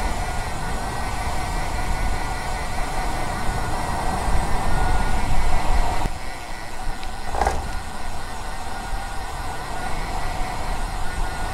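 Wind rumble on a road bike's helmet/body microphone with a steady mechanical hum that fades about six seconds in. About seven and a half seconds in comes a single short clatter, as of bike wheels rolling over a metal cattle grid.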